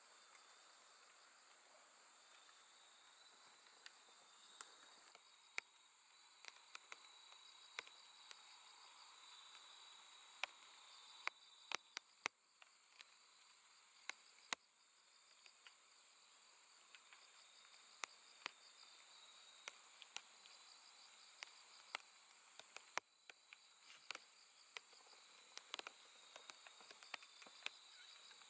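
Faint chorus of grass insects singing on a late-summer night: a steady high trill over a lower, pulsing song. Scattered sharp clicks sound throughout.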